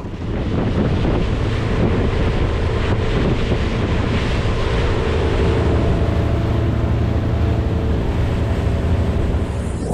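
Small fishing boat's engine running under way, a steady drone under heavy wind buffeting the microphone and rushing water. It gets louder within the first second, then holds steady.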